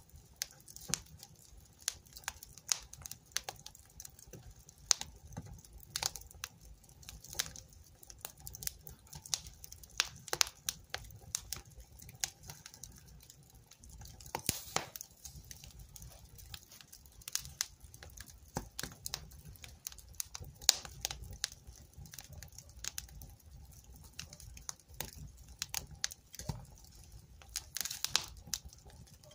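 Wood fire crackling in a fireplace: irregular sharp pops and snaps, several a second, over faint low steady noise from the flames.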